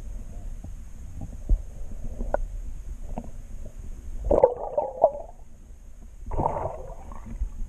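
Water heard through an underwater camera: a low, muffled rumble with scattered clicks and knocks, and two louder bursts of water noise about four and six seconds in.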